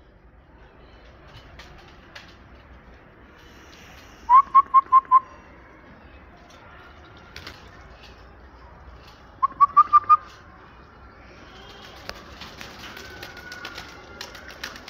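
A person whistling to call pigeons down: two bursts of five quick, short whistled notes, about four seconds in and again about nine seconds in. Near the end, rustling with small clicks.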